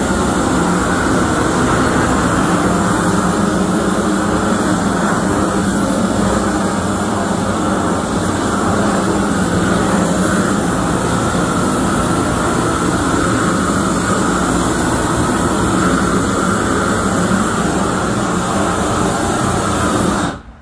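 Hose-fed propane wand torch burning steadily: a loud, even rush of flame as it scorches plywood. It cuts off suddenly near the end.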